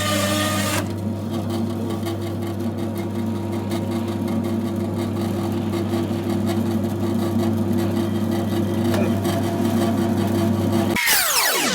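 Electric band saw for frozen fish running with a steady motor hum while it cuts frozen big-head perch. Near the end the hum cuts off with a sudden falling sweep.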